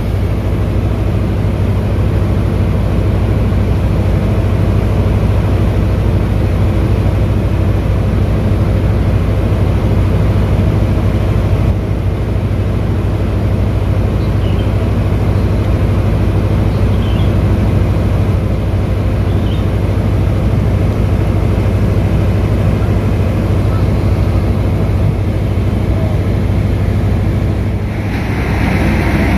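Diesel power pack of a multi-axle Cometto self-propelled modular transporter running steadily as it creeps along carrying a box-girder launcher crane: a loud, low-pitched, continuous drone that dips briefly near the end.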